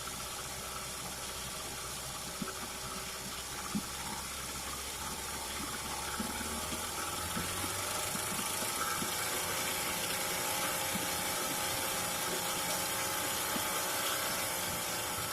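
Early-1950s Goodyear Sea Bee 5 outboard motor running, a steady mechanical clatter with a faint pitched hum that drifts slightly in the second half.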